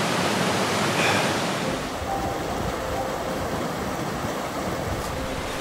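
Creek water rushing steadily over rocks.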